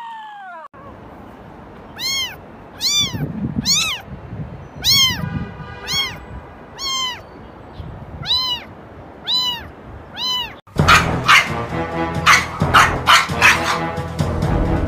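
A cat meowing over and over, about ten short meows roughly a second apart, each rising and then falling in pitch. Near the end it cuts off sharply and loud music takes over.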